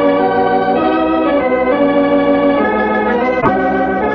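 Organ music from an old-time radio drama's musical bridge, playing held chords that change every second or so. A brief click comes about three and a half seconds in.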